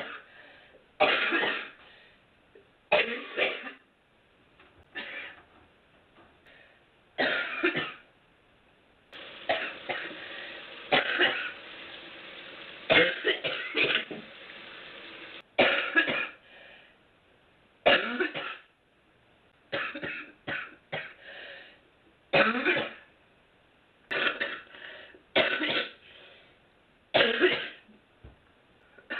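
A woman coughing and clearing her throat in repeated short fits, one every second or two, while smoking a cigarette. In the middle stretch the coughs run together over continuous noise.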